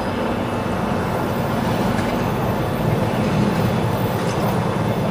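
Steady low rumbling noise, even throughout with no distinct events.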